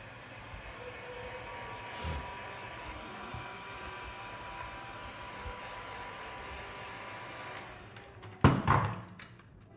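Heat gun blowing a steady rush of hot air to soften the adhesive holding the phone's back cover and battery; it stops a little before the end. Then a brief loud thump.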